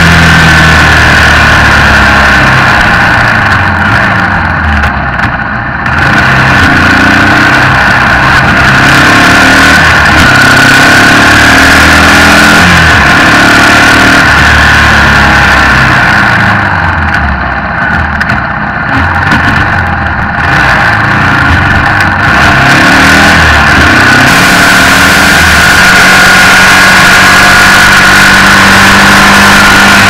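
Yamaha XT225's single-cylinder four-stroke engine running at road speed, its pitch climbing and dropping as it works through the gears, under a steady rush of wind. It eases off and goes quieter twice, about four seconds in and again around seventeen to twenty-one seconds.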